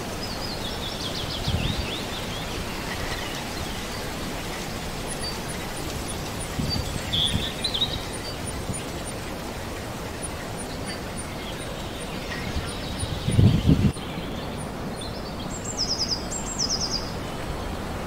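Outdoor ambience of steady wind hiss with small birds calling: a falling trill near the start, short chirps in the middle, and two quick high chirp series near the end. Low gusts of wind hit the microphone a few times, the strongest about three-quarters of the way through.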